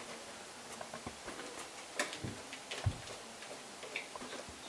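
Mostly quiet, with a few faint scattered clicks and soft knocks from a spoon scooping thick blended bean paste out of a blender jug.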